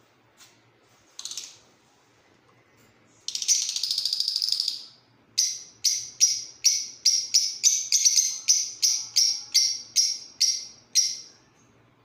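Caged lovebirds calling: a short chirp, a second and a half of rapid shrill chattering, then a run of sharp, high repeated calls, about two or three a second, that stops shortly before the end.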